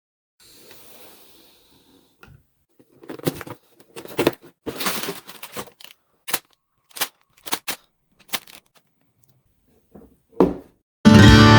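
A LEGO Technic set's box and pieces being handled: a run of short, separate clicks, taps and rustles, some louder than others. Strummed acoustic guitar music comes in near the end.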